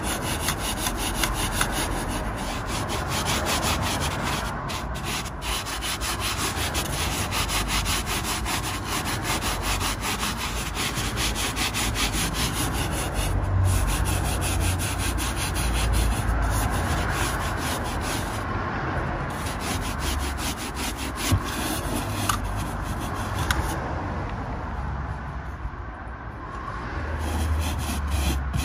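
A stiff brush scrubbing car seat upholstery and carpet with detergent, in quick back-and-forth strokes with a few brief pauses.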